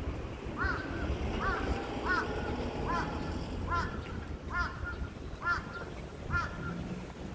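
A crow cawing about eight times in a steady series, one short call a little under every second.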